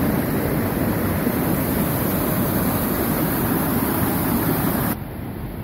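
Mountain river rushing and splashing over boulders in white rapids, a loud steady roar of water that drops off suddenly about five seconds in.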